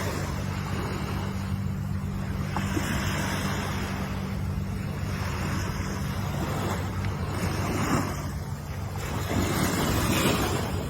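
Ocean surf, waves breaking and washing in again and again in a rising and falling rush, with the biggest surges near the end. A steady low hum runs underneath.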